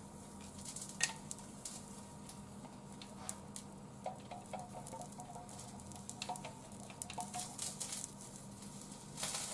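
Wooden chopsticks scraping and tapping batter out of a stainless steel bowl into a frying pan: a scatter of light clicks and scrapes, with short metallic rings in the middle.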